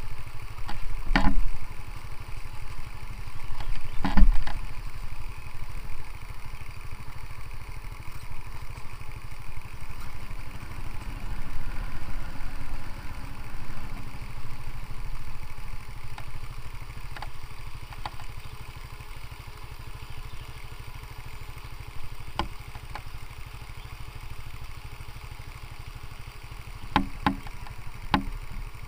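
Small motorcycle engine running steadily at low speed, with a few sharp knocks: two in the first few seconds and a cluster near the end.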